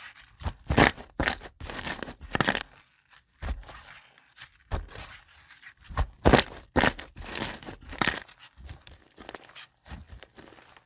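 Slime being worked and squeezed, making irregular crackling pops and clicks, with louder clusters of pops every few seconds.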